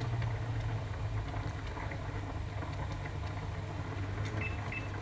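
Thermomix control panel beeping twice in quick succession near the end as its settings are keyed in, with faint clicks of the controls, over a steady low hum.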